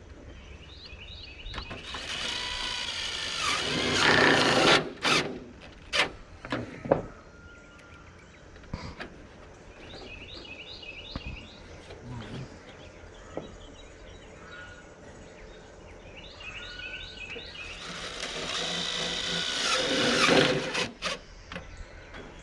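A power drill driving screws through metal fascia trim along a mobile home's roof edge, in two runs of a few seconds each, about 2 s in and about 18 s in. Each run is followed by a few sharp clicks and knocks.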